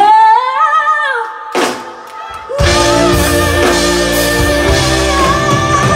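Live pop-rock band: a woman's voice sings a short line alone through the PA, then about two and a half seconds in the full band comes in with drums, bass, electric guitar and keyboard under her singing.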